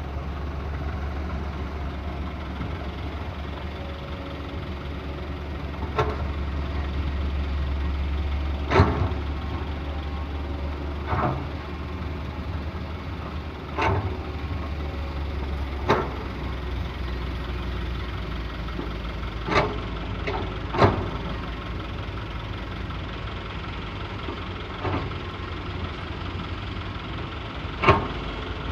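Excavator's diesel engine running steadily at a low hum, with sharp knocks every few seconds as it works loading sand into a truck.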